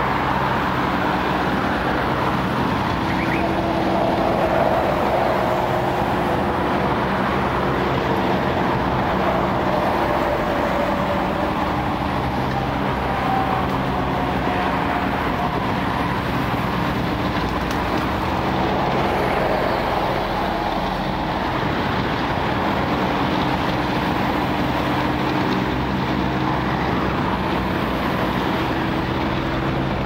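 Truck crane's diesel engine running steadily, with a hydraulic whine that shifts slightly in pitch as the boom and felling grapple move.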